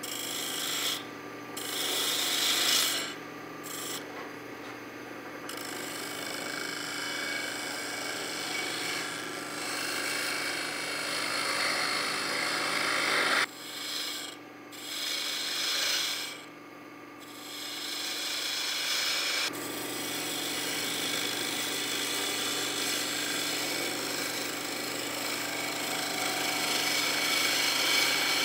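Spindle gouge cutting a walnut blank spinning on a wood lathe: a continuous scraping hiss of the cut over the steady hum of the lathe. The cutting breaks off briefly several times, mostly in the first few seconds and again about halfway through.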